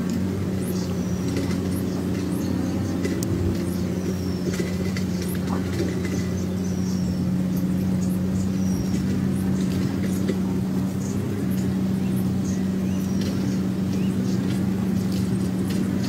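Steady low motor-like drone with a constant hum. Faint short high chirps, some sliding downward, come and go over it.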